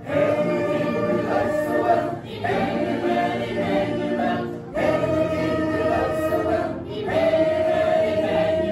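Mixed choir of men's and women's voices singing a hymn a cappella, in four held phrases with brief breaks between them.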